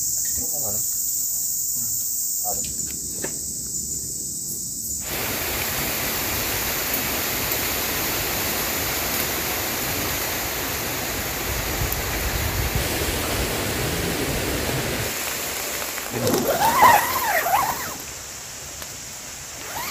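Insects chirping in a steady high drone for about five seconds, then a sudden change to heavy tropical rain and wind in the forest: a dense, even hiss of rain through the trees, with a deeper rush of wind between about eleven and fifteen seconds.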